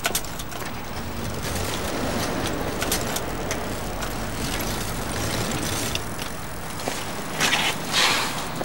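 Street ambience with a steady low traffic rumble. Near the end it is broken by two short, loud rushes of harsh noise.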